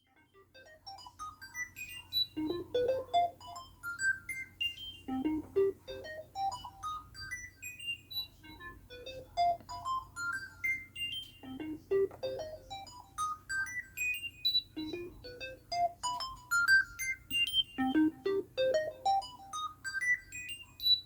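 Korg microKORG synthesizer playing fast rising arpeggios of short notes. Each run climbs from low to high over about three seconds and then starts again, over a faint steady low drone.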